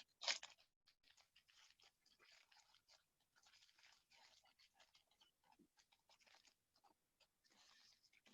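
Mostly near silence, with a short burst of crinkling at the start and faint crackling after it: a foil trading-card pack wrapper being torn open and handled.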